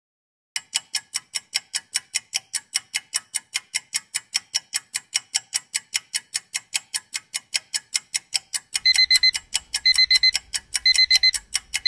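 Countdown-timer sound effect: a clock ticking about four times a second, joined about nine seconds in by a beeping alarm-clock ring in short bursts about once a second as time runs out.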